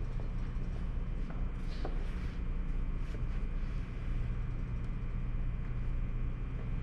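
Steady low hum of workshop background noise, with a few faint clicks and taps.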